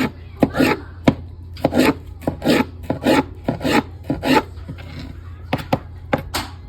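Gerber Tri-Tip mini cleaver cutting food on a wooden cutting board: a run of rasping strokes, about one every half second, mixed with sharp knocks of the blade on the board.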